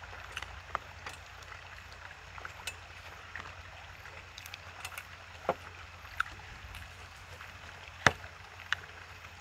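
Wooden chopsticks and a spoon clicking and tapping against plastic takeout containers, scattered single taps with the loudest about eight seconds in, over a steady low rumble.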